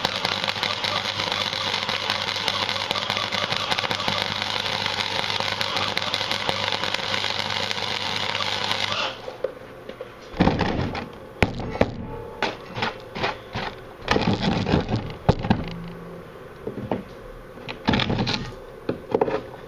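Gasless flux-core wire-feed welder arc crackling steadily over an electrical hum, cutting off suddenly about nine seconds in. Irregular short sharp bursts and clicks follow.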